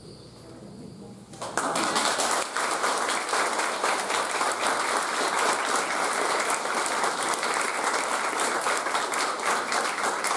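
Audience applauding: many people clapping, starting suddenly about a second and a half in and carrying on steadily.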